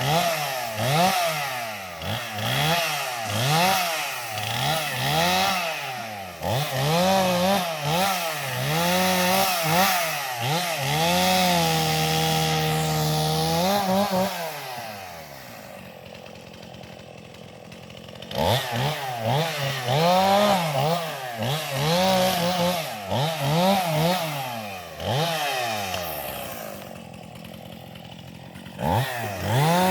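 Gas chainsaw cutting up limbs of a felled tree, the engine revving up and down in quick pulses of about a second each. It is held at full throttle for a couple of seconds about twelve seconds in, then drops to idle for a few seconds, revs again, and idles briefly once more near the end.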